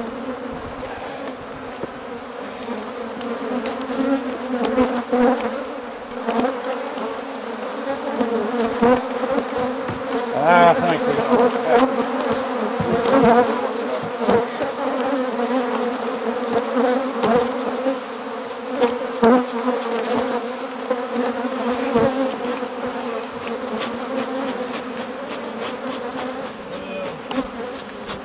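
A mass of honeybees buzzing, a dense steady hum with single bees now and then darting close past the microphone. It is the sound of a disturbed, defensive colony that has just been smoked. A few short knocks on the wooden barn boards sound through it.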